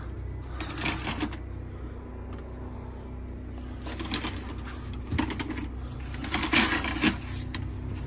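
Four short bursts of light rattling clatter from hands working the bedroom's window and curtain fittings, over a steady low hum.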